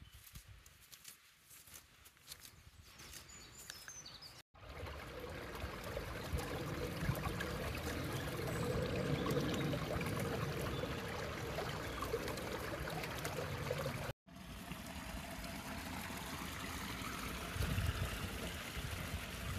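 Water pouring out of a culvert pipe and trickling over stones in a shallow stream, a steady splashing rush. It starts suddenly after a few quieter seconds.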